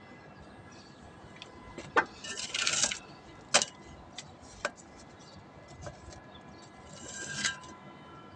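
PVC pipe and fittings being handled: a few sharp plastic knocks and clicks, with short scraping rubs about two seconds in and again near the end.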